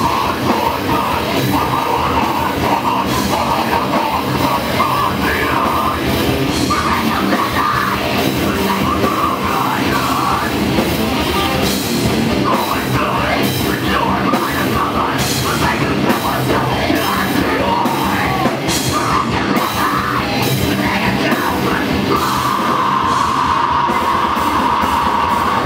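Rock band playing loud, live: electric guitars and a drum kit, with a steady held high note near the end.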